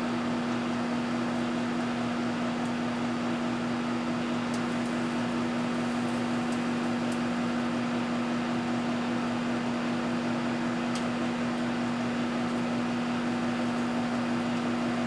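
Microwave oven running: a steady, unchanging low hum with fan noise, and a few faint ticks.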